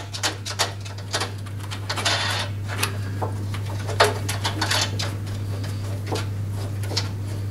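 Small irregular clicks and rattles of a metal washer and plastic wing nut being fitted and spun by hand onto a bolt in a lawn mower's handle bracket, with a brief scrape about two seconds in. A steady low hum runs underneath.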